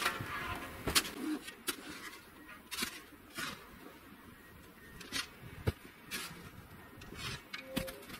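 Hand snow shovel cutting into and scraping packed roof snow: irregular scrapes and soft knocks, one to two a second, the loudest about a second in.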